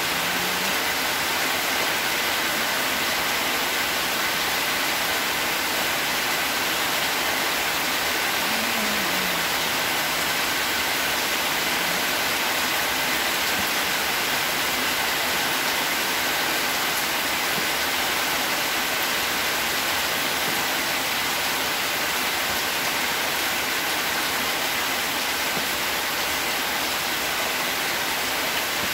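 A steady, even hiss, with two faint high steady tones above it; no knock or tap from the kite-making stands out.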